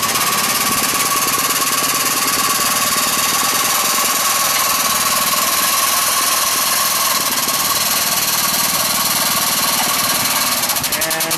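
A machine running loudly and steadily with a fast, even rattle and a steady high whine, cutting off suddenly at the end.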